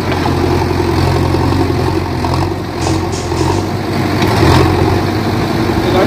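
JCB 3DX backhoe loader's diesel engine running steadily under load as the machine, stuck in mud, levers itself with its front and rear buckets. A few short knocks from the working machine come a little under halfway through.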